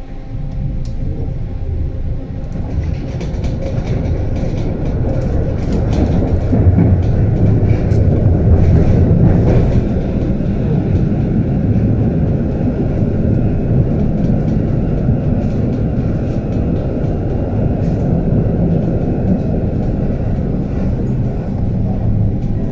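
HF 11 AC tram running along the track, with wheels and rails giving a steady low rumble and scattered clicks and rattles. It grows louder over the first several seconds, then holds steady.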